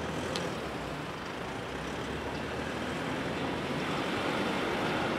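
Road traffic on a city street: a steady wash of engine and tyre noise that slowly grows louder as vehicles pass.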